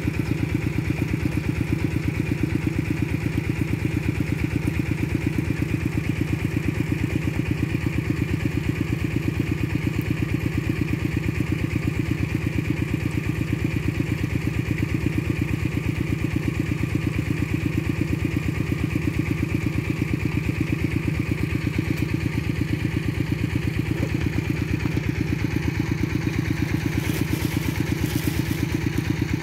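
A small engine running steadily at a constant speed, with an even, rapid beat.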